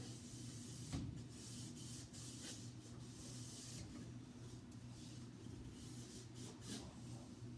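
Sponge scrubbing a refrigerator surface in short, irregular rubbing strokes, with a single knock about a second in and a steady low hum underneath.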